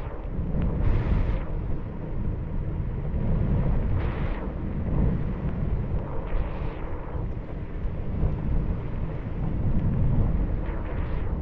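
Wind rumbling and buffeting on the microphone of a moving scooter, with a faint steady hum underneath. A higher rushing noise swells up and fades several times.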